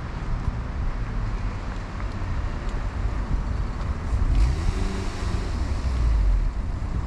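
Rainy city street ambience with a steady low traffic rumble. About four seconds in a vehicle swells past, its engine and tyres hissing on the wet road.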